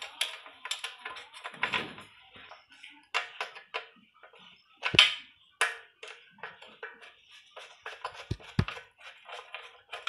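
Screwdriver and steel fan-blade brackets clicking and scraping against the motor housing as the blade screws are driven in to fasten ceiling fan blades. Irregular small clicks, with a sharper knock about five seconds in.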